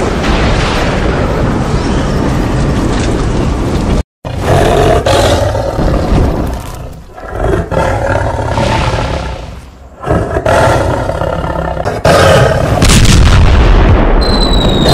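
Loud dubbed sound effects: a steady rushing rumble that cuts off abruptly about four seconds in, then repeated big-cat roars mixed with booms. Near the end comes a high whistle falling in pitch.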